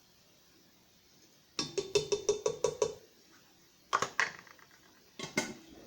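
A kitchen utensil tapping against a large cooking pot: a quick run of about eight light taps, then two pairs of knocks.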